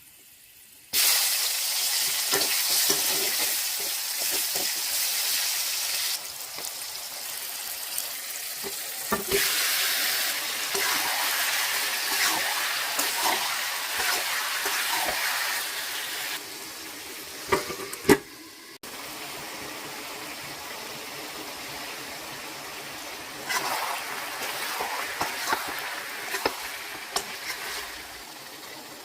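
Chicken sizzling as it fries in a pan, stirred now and then with a spatula that scrapes and knocks against the metal. The sizzling comes in long loud stretches with quieter spells between.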